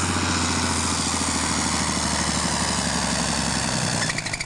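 John Deere diesel farm tractor running hard under full load while pulling a weight-transfer sled, with a steady engine note. About four seconds in, the engine note drops away.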